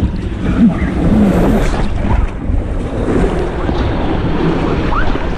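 Rushing whitewater of river rapids, loud and continuous, with wind and water buffeting the microphone.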